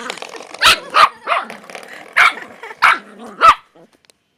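A dog barking in play, about five sharp barks over three and a half seconds.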